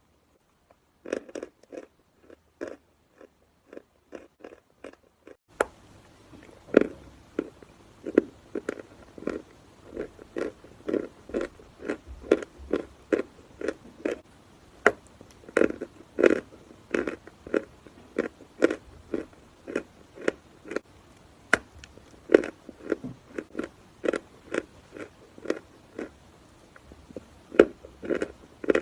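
Dry chalk being bitten and chewed close to the microphone: a steady run of sharp crunches at about two a second. A faint low background hiss comes in about five seconds in.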